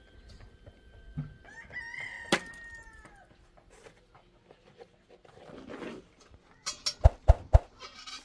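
A rooster crowing once, a drawn-out call that falls in pitch at the end. A few sharp knocks follow near the end.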